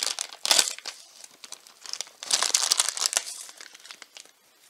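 Shiny black plastic blind-bag packaging being slit with a knife and crinkled in the hands: irregular crackling, loudest about half a second in and again from about two to three and a half seconds, fading near the end.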